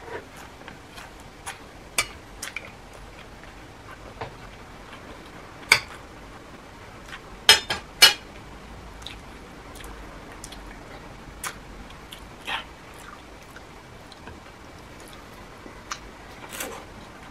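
Eating at the table: scattered short clinks of a spoon against ceramic plates, along with mouth sounds of chewing. The loudest is a quick run of three clinks about halfway through.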